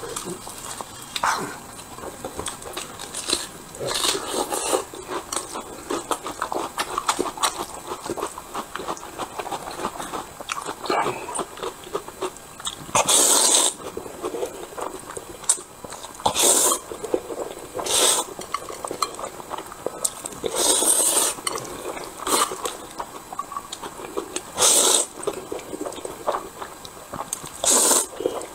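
A person eating hot dry noodles with chopsticks: chewing in the first half, then about six loud slurps a few seconds apart as mouthfuls of noodles are sucked in.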